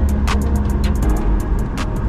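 Airliner cabin of a Boeing 737 MAX 8 after landing: a steady low engine hum with frequent sharp rattles and clicks, and music playing over it.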